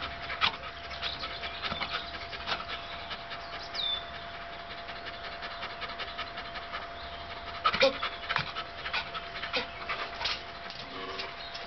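Dogs panting hard while one tugs with its teeth at a rubber play ring stuck in a wrought-iron gate. The metal gate rattles and clanks in sharp knocks as it is pulled, with a cluster of louder knocks about eight seconds in.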